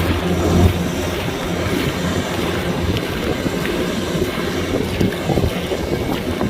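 Kubota DC-105X combine harvester running steadily with a constant engine hum and the rush of the machine working.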